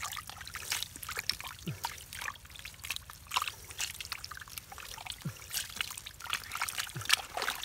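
Hands squelching and splashing through shallow liquid mud, a run of irregular wet slaps and sucking sounds with a few short falling squeaks.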